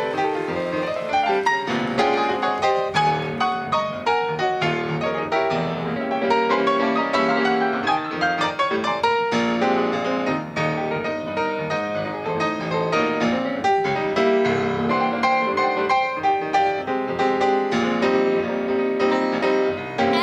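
A grand piano playing solo, a busy run of quick notes and chords with no voice over it.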